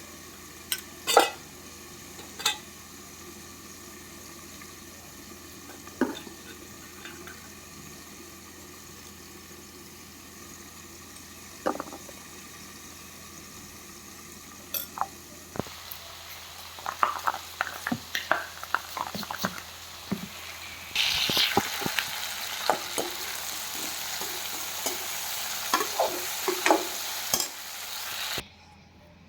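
A metal spoon stirring, scraping and clinking in a cooking pan, sparse at first and busier after about fifteen seconds. About twenty-one seconds in, loud frying sizzle starts under the stirring, then cuts off suddenly near the end.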